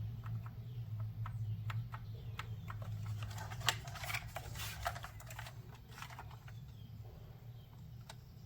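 Typing on a Logitech MX Mechanical keyboard with linear red switches: irregular key clacks, thickest in the middle and thinning out near the end.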